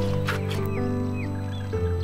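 Background music of long held notes that change chord near the end, with a few short chirps from birds over it.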